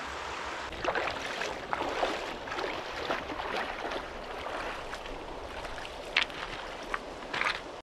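Steady rush of flowing river water, with irregular splashing and sloshing through the first few seconds and a few sharper splashes near the end.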